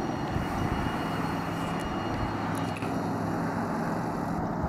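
A machine running steadily in the background: an even, low droning hum with a faint hiss.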